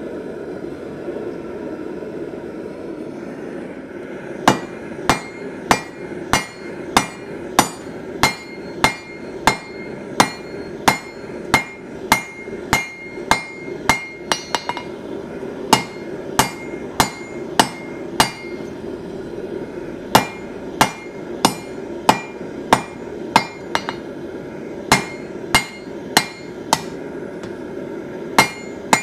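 Hand hammer striking hot steel on an anvil during hand forging, starting about four seconds in: sharp ringing blows about two a second, in runs broken by short pauses. A steady rushing noise runs underneath.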